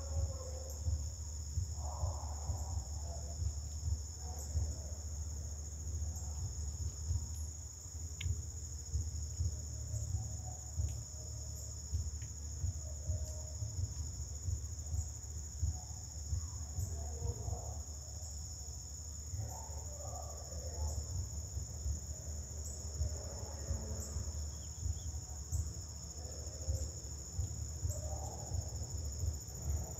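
A steady, high-pitched chorus of insects droning without a break in summer woodland, with a low rumble underneath.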